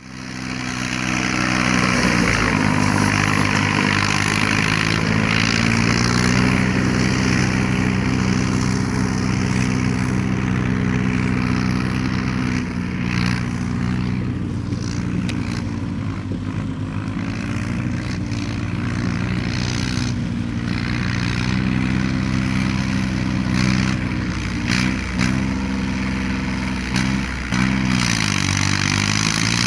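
Yanmar YM3000 tractor's three-cylinder 3T84 diesel engine running under load as it pulls a round baler, its pitch sagging briefly a few times, most deeply near the end. A steady mechanical hiss with a few clicks comes along with it.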